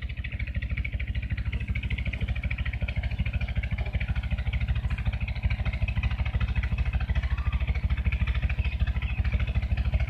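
An engine running steadily at idle, with a fast, even beat.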